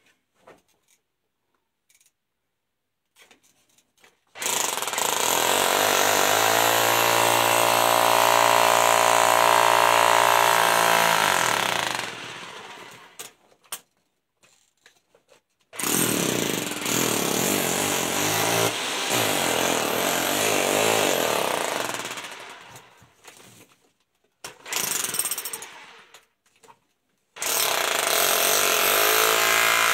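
Handheld jackhammer breaking into rock, the sapphire-bearing ground of an underground dig. It runs in bursts: about eight seconds, a pause, about six seconds, a short burst, then again near the end.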